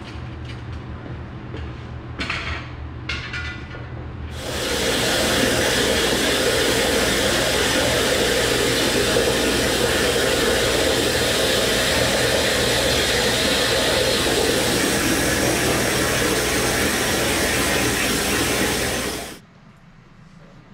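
A low steady hum with a few clicks. About four seconds in, the plasma arc of a CNC plasma table's torch fires and cuts a 1/4-inch aluminum sheet with a loud, steady hiss that runs about fifteen seconds and then cuts off abruptly.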